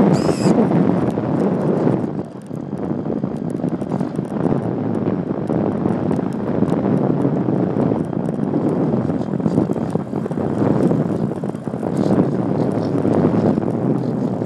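Wind rushing over the microphone of an iPhone strapped to a ParkZone Radian Pro RC glider in flight: a rough, steady rush that swells and dips, with scattered faint clicks and a brief high whine at the very start.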